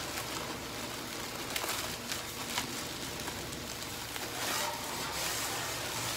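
Plastic courier pouch crinkling and rustling as it is torn open and a small cardboard box is pulled out of it, with a few sharp crackles along the way, over a steady low hum.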